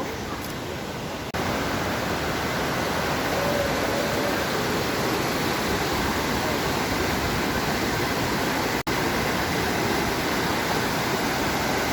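Steady rushing of a large waterfall, an even hiss of falling water with no pauses; it cuts out for an instant about a second in, then comes back louder, and once more near nine seconds.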